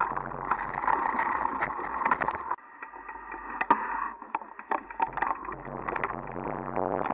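Mountain bike rolling down a rocky dirt trail: a steady rattle full of sharp knocks from the bumps, easing off briefly about two and a half seconds in before picking up again.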